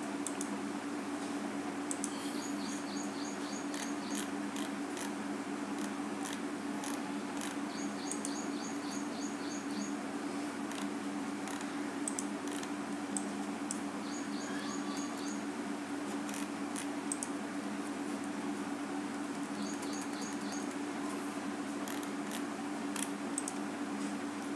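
Computer mouse being used: several short runs of fast scroll-wheel ticks and scattered button clicks, over a steady low hum from the recording setup.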